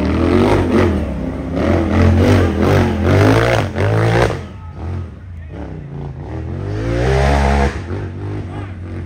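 Side-by-side UTV engine revving in surges, its pitch climbing and dropping repeatedly as the throttle is worked on a trail climb; loudest over the first four seconds, easing off, then revving up again about seven seconds in.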